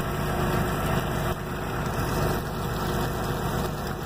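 T-bone steaks sizzling steadily in bacon grease in a skillet on an electric hot plate. The thermostat has been bypassed, so the plate stays at full heat and the fry never lets up.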